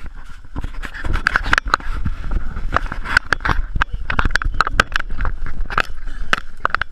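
Branches and palm fronds brushing and scraping against a GoPro action camera as the horse pushes through dense scrub: a rapid, irregular run of loud crackles and scrapes right at the microphone.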